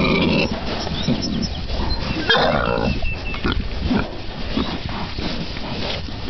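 Pig grunting repeatedly in short pitched calls, with a louder, higher call about two seconds in.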